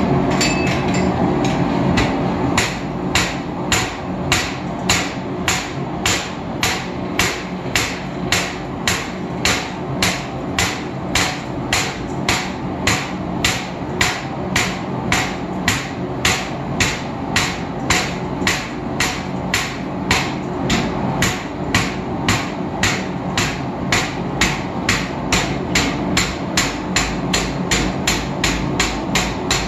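Hand hammer striking a red-hot iron bar on an anvil, in steady blows about two a second that start a couple of seconds in. A steady background hum runs underneath.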